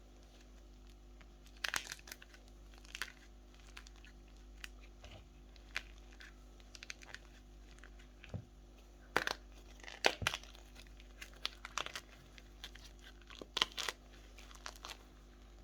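Sports chalk (magnesium carbonate) being crushed, giving irregular dry crunches and crackles. The loudest clusters come about nine to ten seconds in and again near the end.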